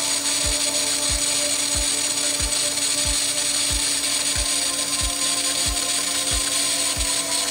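TIG welding arc on stainless steel tube, a steady hiss and buzz while the weld is laid. Background music with a kick-drum beat about one and a half times a second plays over it.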